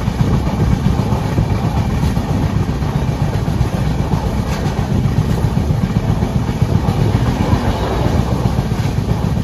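Passenger train running along the track, a steady loud rumble.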